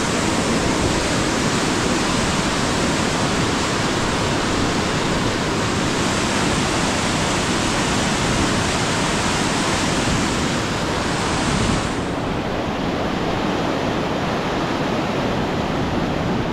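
Fast mountain river rushing over boulders in whitewater rapids: a loud, steady roar of water that turns slightly duller about twelve seconds in.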